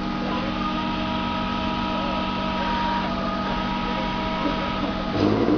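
Cat electric 6,000 lb forklift running, its electric drive giving a steady hum and whine of several held tones. About five seconds in, a louder, rougher low sound comes in.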